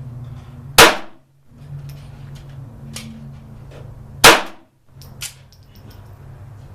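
Kel-Tec P17 .22 LR semi-automatic pistol firing two shots about three and a half seconds apart, each a sharp crack with a short tail.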